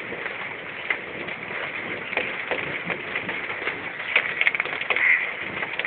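Heavy rain falling steadily, with scattered drops ticking on a hard surface. A short bird call sounds about five seconds in.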